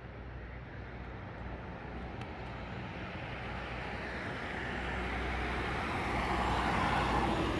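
Car driving slowly along a town street: a steady low engine hum with tyre and road rush that builds over the last few seconds and is loudest near the end.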